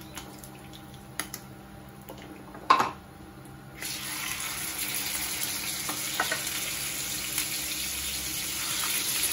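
A single sharp clack a little under three seconds in, then a raw tanigue (Spanish mackerel) steak is laid into hot garlic butter in a frying pan and a steady sizzle starts at once, growing slightly louder near the end.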